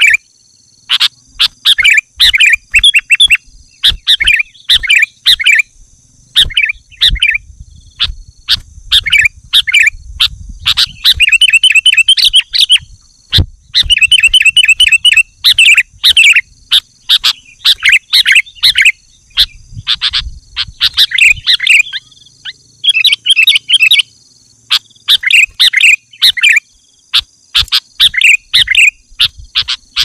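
Male sooty-headed bulbul (kutilang) singing: a long run of short, bubbly whistled phrases, repeated every second or so, with faster chattering runs in the middle. A faint steady high-pitched drone sits underneath, and sharp clicks come throughout.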